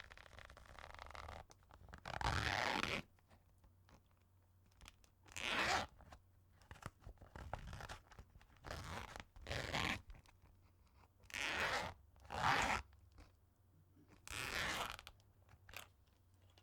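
A zipper being pulled open and shut again and again, each pull a short rasping stroke of about half a second to a second, some in quick pairs, with pauses between.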